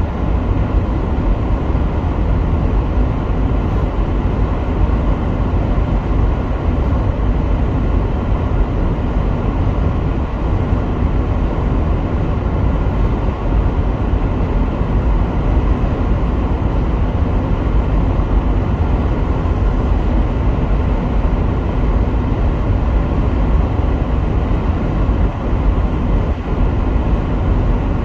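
Steady low rumble of a car being driven: road and engine noise with no breaks or changes.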